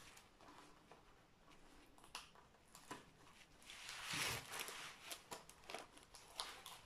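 Protective sheet on a diamond-painting canvas being handled and peeled back: faint crinkling and small crackles, with a louder rustle about four seconds in.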